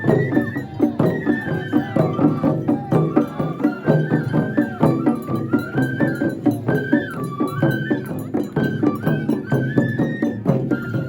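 Japanese festival hayashi music: a high flute melody over steady drum strokes.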